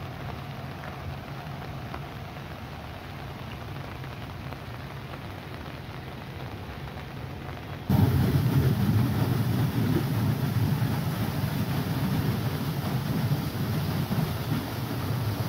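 Steady rain for the first half. About eight seconds in, the sound switches abruptly to the loud, steady rush of flood water gushing from a pumping station's large outlet pipes into a swollen river.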